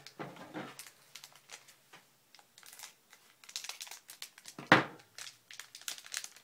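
Crinkling and tearing of a Japanese baseball card pack's wrapper being torn open by hand, in irregular crackles with one louder crackle a little past the middle.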